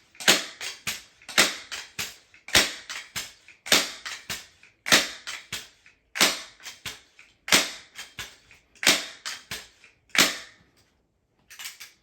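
Crosman 362 multi-pump pneumatic air rifle being pumped: about nine sharp clacks of the pump lever, one every second and a bit, each followed by a few smaller clicks, charging the rifle for the next shot. A lighter clatter of clicks follows near the end.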